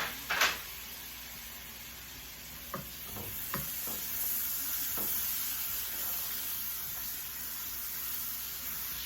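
Chopped onions and garlic sizzling in butter in a frying pan, a steady hiss. One sharp knock comes about half a second in, and a few light clicks follow a few seconds later, typical of a utensil stirring against the pan.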